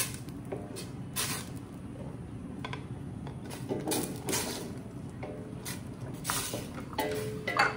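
Wooden spoon scraping and knocking against a stainless steel stockpot as chunks of squash are stirred into thin coconut milk: irregular scrapes and taps, with a sharper knock near the end.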